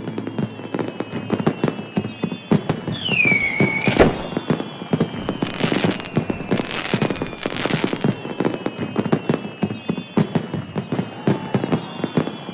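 Fireworks going off, with dense crackling and popping throughout. About three seconds in, a whistle falls in pitch and is followed by the loudest bang. Three short hissing bursts follow a couple of seconds later.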